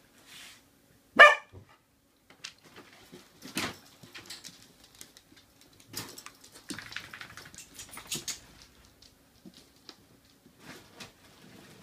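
A dog gives one loud, sharp bark about a second in. Then come scattered light clicks and rustles of dogs play-wrestling on a hard floor and bedding.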